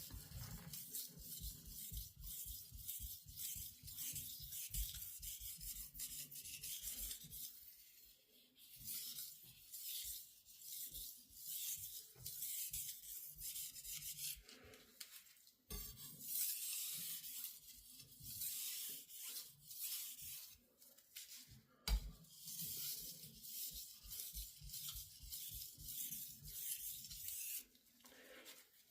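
A Japanese carbon-steel knife being stroked back and forth on a Japanese natural whetstone: a rhythmic scraping hiss in several runs of quick strokes with short pauses between them.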